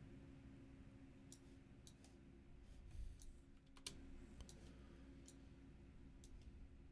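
Several faint, scattered computer mouse clicks over a faint steady hum of room tone.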